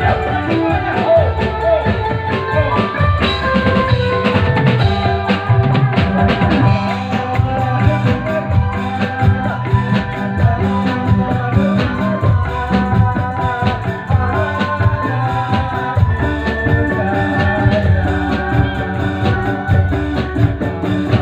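Live band music: a drum kit keeps a steady beat under sustained melody from keyboard and other instruments, with a singer on microphone.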